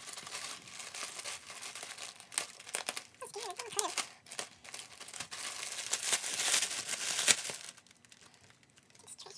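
Packaging being crinkled and torn open by hand: a run of rustling, crackling crinkles that grows louder toward the middle and dies down near the end.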